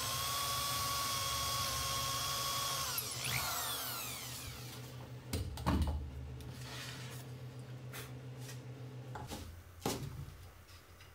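Cordless drill driving a screw into plywood: the motor whines steadily for about three seconds, then winds down as the trigger is let go. A few sharp knocks and clicks follow, the loudest about halfway through.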